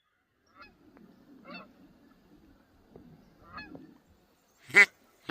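Ducks quacking: a few faint calls, then two loud, harsh quacks close together near the end.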